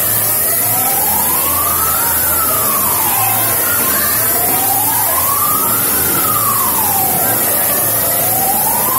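Wailing siren sweeping slowly up and down in pitch, each rise and fall taking about four seconds, over a steady high hiss.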